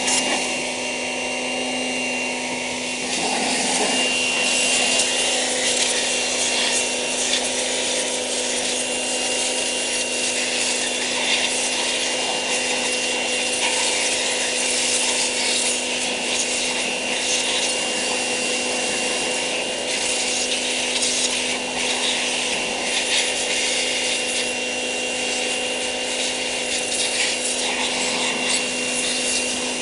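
High-pressure washer running, its pump giving a steady hum and whine under the hiss of the water jet, which grows louder about three seconds in.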